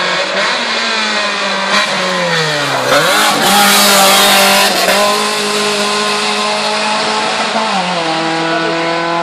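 Race car at a hillclimb driving past close by at speed. Its engine note dips sharply and climbs again, it is loudest about four seconds in, and near the end there is a step down in pitch at a gear change.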